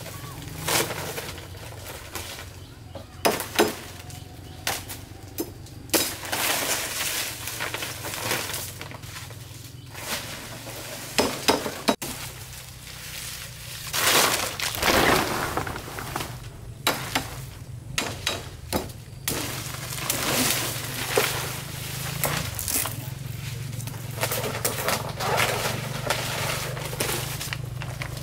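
Machete blows chopping at woody stems, a sharp crack each, then longer stretches of cracking, snapping and rustling as thin canes are pulled and bent through dry palm fronds.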